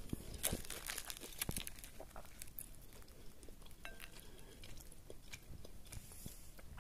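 A fork breaking into a toasted panini on a ceramic plate: a run of small crackles and clicks from the crust and metal touching the plate, busiest in the first two seconds, then sparser.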